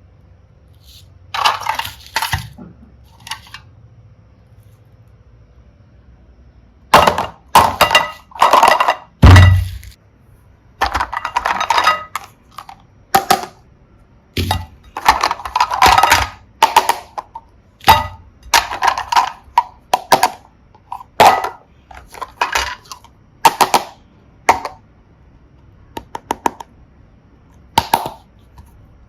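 Slime being handled with small plastic toys in it: a long run of short, irregular crackling clicks and clinks, starting about a second and a half in, pausing for a few seconds, then coming thick and fast, the loudest with a dull thud about nine seconds in.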